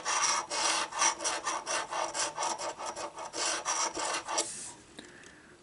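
A large coin scratching the latex coating off a scratch-off lottery ticket in quick, rasping back-and-forth strokes. The strokes stop about four and a half seconds in.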